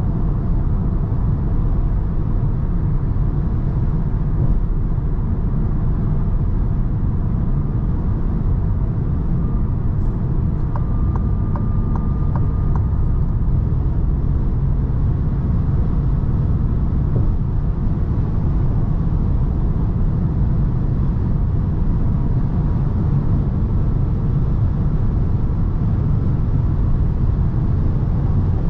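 Steady in-cabin noise of a Citroën C4 III with a 1.2-litre three-cylinder petrol engine cruising at about 130 km/h on a motorway in sixth-gear-style steady running: a deep, even road and tyre rumble with the engine humming underneath. A few faint ticks with a thin tone come in briefly about eleven seconds in.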